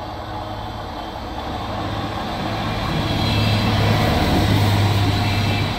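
A Stadler GTW diesel multiple unit passing close by: a steady low engine drone with wheel and rail rumble, building as it approaches and loudest as its central power module goes past about four seconds in.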